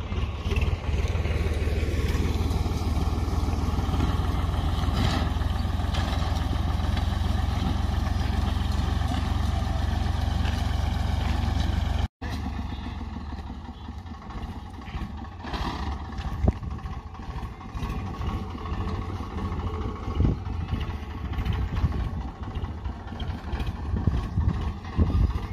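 A tractor engine runs steadily as it pulls a plastic mulch-film laying machine. There is a deep, even rumble in the first half. After a brief break about halfway, the engine noise is more uneven, with scattered knocks and clatter.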